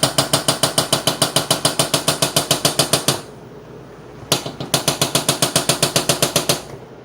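Washing machine making an abnormal fast, even knocking, about eight sharp ringing knocks a second; it stops about three seconds in, gives one lone knock, then resumes briefly. The owners link the noise to the whole machine having shifted out of position.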